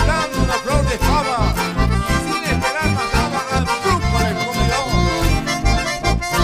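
Live band playing an instrumental passage led by button accordions, over a steady beat of bass pulses.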